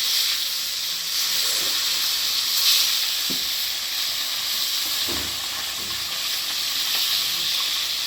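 Rohu fish pieces freshly added to hot oil in a kadai, sizzling loudly and steadily as they fry. A couple of soft knocks come about three and five seconds in.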